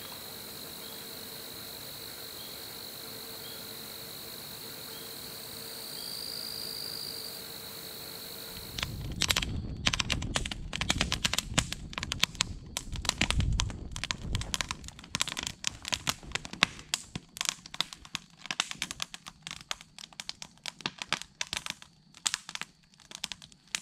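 Crickets chirring in a steady high hum for the first eight seconds or so. Then a hollowed-out old cedar burning like a chimney takes over: the fire crackles and pops sharply in rapid, dense snaps, with a low rushing underneath at first.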